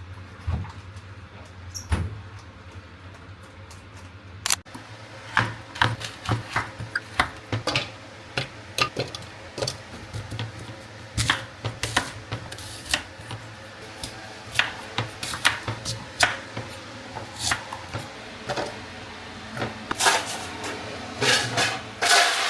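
Kitchen clatter: irregular clicks and knocks of things being handled and set down on a counter, busier from about four seconds in and thickest near the end, over a low steady hum.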